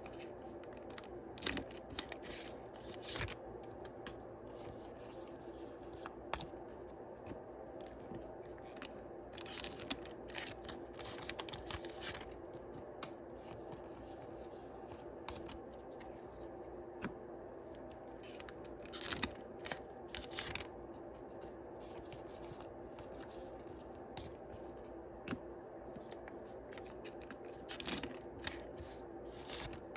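Yu-Gi-Oh booster packs being opened one after another: foil wrappers tearing and crinkling in short rustling strokes, with louder clusters roughly every nine seconds and the cards handled between them.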